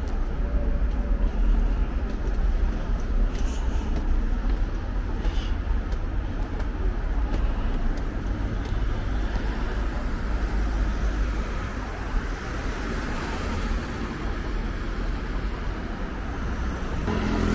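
Road traffic on a busy multi-lane city street: a steady rumble of cars and trucks going by.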